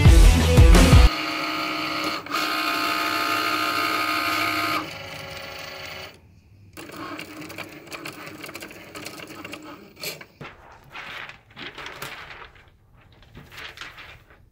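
A Cricut cutting machine at work on a sheet of vinyl: its motors whir steadily as the carriage and rollers move, stop briefly about six seconds in, run on more quietly, then give way to short, uneven whirs and clicks over the last few seconds.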